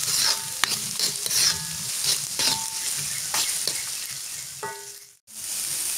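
Sliced shallots and garlic sizzling as they are sautéed in a wok, stirred with a metal spatula that scrapes the pan about once a second and gives short metallic rings. The sound drops out abruptly for a moment about five seconds in.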